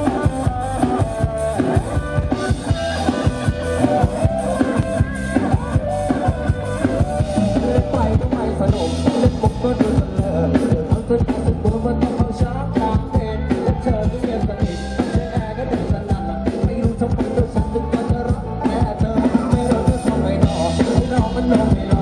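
Live band music played loud through a rot hae sound truck's speaker stacks: drum kit keeping a fast, steady beat, with electric guitar, keyboard and a singer over it.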